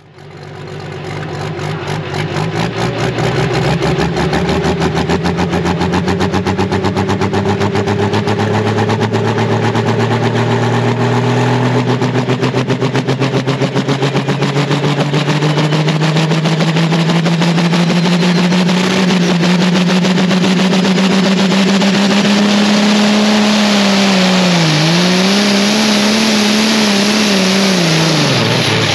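Pro stock pulling tractor's diesel engine at full power during a pull, fading in at the start, its note climbing slowly and steadily as it drags the sledge down the track. Near the end the revs dip and recover twice, then fall away as the run ends.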